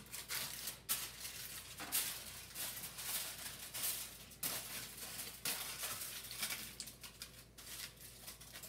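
Aluminum foil crinkling and rustling in irregular crackles as it is pressed by hand into a square baking pan and worked into the corners.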